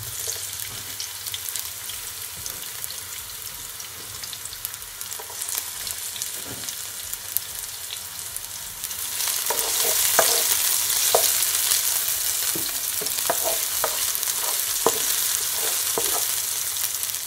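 Diced onion and garlic sizzling in hot olive oil in a non-stick frying pan. The sizzle grows louder about nine seconds in as a spatula stirs the onions around the pan, with light scrapes and taps.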